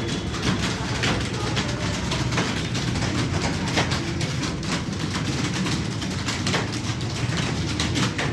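Typing on a computer keyboard: a rapid, irregular run of keystroke clicks, several a second, over a steady low hum.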